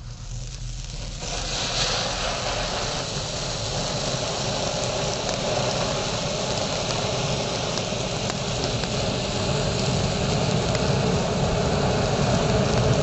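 Fountain firework spraying sparks with a steady rushing hiss that builds up over the first two seconds, then holds, growing slightly louder toward the end, with a few faint crackles.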